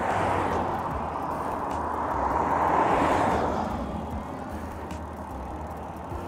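Road traffic going past: a vehicle's noise swells and fades at the start, and a louder one passes about three seconds in.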